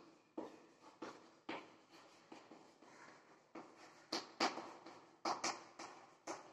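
Chalk writing on a chalkboard: an irregular run of short taps and scrapes as the chalk strikes and drags across the board letter by letter.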